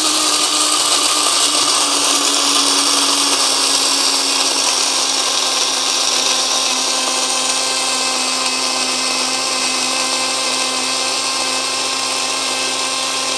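Mr. Coffee Simple Grind blade coffee grinder running steadily with its button held down, its steel blades chopping a full load of whole coffee beans for a medium grind. A steady motor whine sits over a dense grinding hiss, and the motor's pitch settles slightly lower a few seconds in.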